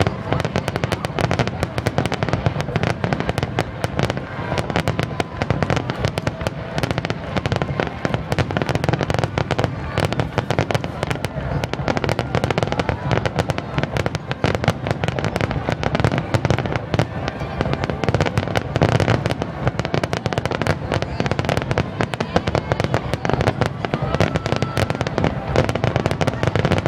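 Aerial fireworks display: a dense, continuous barrage of rapid crackling and bangs from many shells bursting in quick succession.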